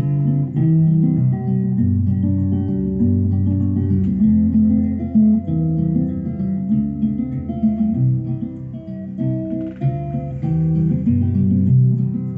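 Acoustic guitar music playing back from a vinyl 45 on a Garrard Z2000B turntable, heard through the speakers.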